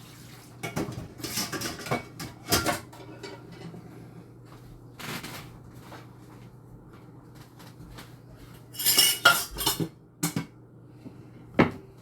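Dishes and cutlery clattering and clinking as they are gathered up off a stove, in several short bursts, the loudest about nine seconds in.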